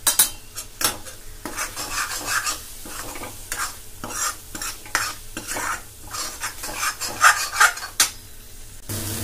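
A steel ladle stirring and scraping thick spice masala around a metal kadhai in irregular strokes, with the masala sizzling in hot oil as it fries until the oil separates.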